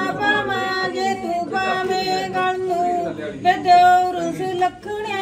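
Women's voices singing a traditional Punjabi wedding folk song together, long notes held and bent through each line.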